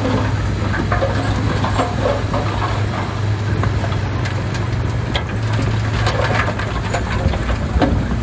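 Komatsu D31P crawler bulldozer's diesel engine running steadily, with scattered clanks from its steel tracks and blade.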